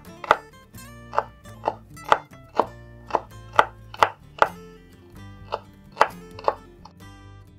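Chef's knife dicing celery on a wooden cutting board, sharp chops at about two a second, with a brief pause about five seconds in before the chopping resumes. Background music plays under it.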